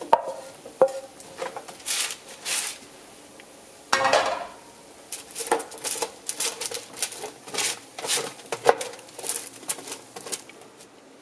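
Wooden spoon scraping sticky caramelized pecans out of a nonstick skillet and spreading them over a parchment-lined baking sheet: irregular scrapes and knocks of spoon, nuts and metal pan, one louder about four seconds in.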